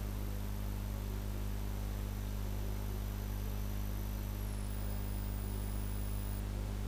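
Steady electrical hum with a faint hiss, and a thin high-pitched whine above it that drops slightly in pitch a little over halfway through.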